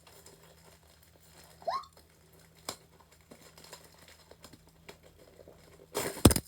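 Faint rustling and small clicks of cardboard-and-tape packaging being worked at by hand. A short vocal squeak comes about two seconds in, and a loud half-second burst of noise near the end as the package finally tears open.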